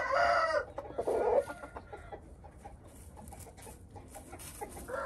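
Thai Asil bantam chickens calling: a rooster's crow ends about half a second in, a shorter low call follows about a second in, and another call begins near the end.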